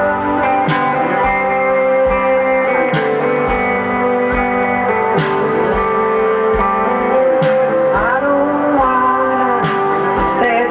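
Live indie rock band playing, an electric guitar leading over a steady beat, with sliding guitar notes from about eight seconds in.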